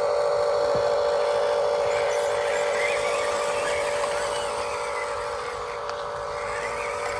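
Electric motor and gearbox of a radio-controlled toy excavator or dump truck running with a steady whine, easing slightly in level toward the end.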